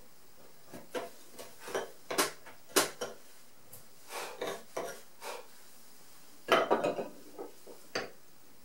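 Hand-pushed carving chisels making finishing cuts in very hard keyaki (zelkova) wood: a run of short, sharp cutting clicks and scrapes at irregular intervals, with the loudest cluster about six and a half seconds in.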